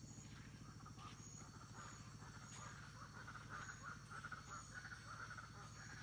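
Faint Amazon rainforest animal chorus. A fast run of repeated mid-pitched notes starts about a second in and is loudest around four seconds in: the strange call that the recordist takes for a birdcall. Behind it run a steady high insect-like tone and short high chirps about once a second.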